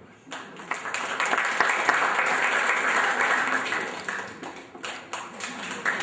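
Audience applauding: a crowd of hands clapping that starts just after the opening, dips briefly near the end and swells again.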